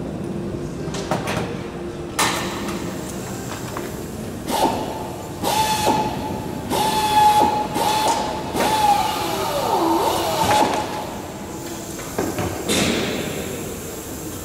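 Clicks and knocks of hand-tool work on the aluminium skin of a Lancaster bomber's rear fuselage, coming irregularly. Through the middle a steady tone sounds, dips sharply in pitch and comes back.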